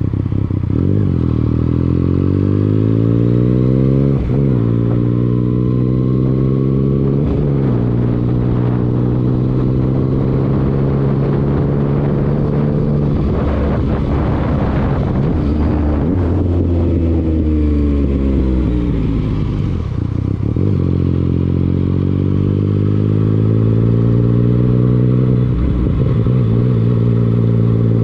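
Motorcycle engine accelerating up through the gears, its pitch climbing and dropping back at each upshift about 1, 4 and 7 seconds in, then holding steady. Midway a rushing noise takes over while the engine slows, before it pulls up through the gears again with another shift near the end.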